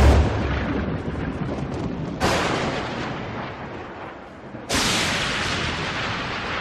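Thunder-crash sound effects for an animated intro. Three booms, each starting suddenly with a crack and rumbling away over about two seconds; the first, at the start, is the deepest, and the others come about 2 and 5 seconds in.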